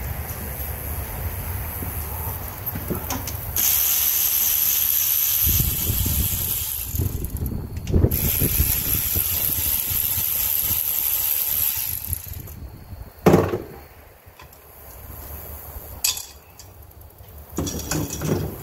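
Hand tools working on a Can-Am Commander's V-twin engine: ratchet-like clicking and metal handling, with a steady high hiss through the middle stretch and two sharp knocks near the end.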